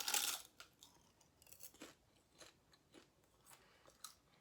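A person chewing a crunchy grilled seaweed roll snack: faint, irregular crunches and mouth clicks, a little louder at the very start.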